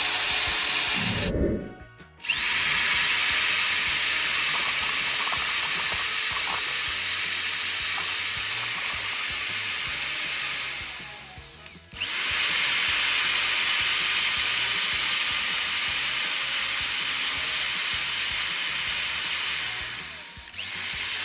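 Corded electric drill spinning a paddle mixing stick in a bucket of cherry mead must, stirring in freshly pitched yeast. It runs in three long spells, stopping briefly about two seconds in, again around eleven seconds and once more near the end.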